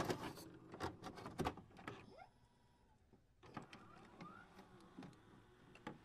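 Faint electronic glitch sound effects: scattered sharp clicks and a few short gliding chirps, with a near-silent pause about halfway through.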